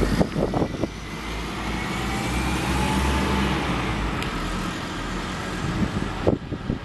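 A vehicle passing, its sound swelling towards the middle and fading again, with a faint tone that rises and falls. Wind buffets the microphone near the start and again near the end.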